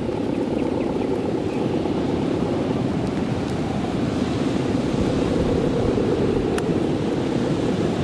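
Steady, rough droning hum of big Balinese kites' hummer bows (guangan) vibrating in strong wind, mixed with wind rush.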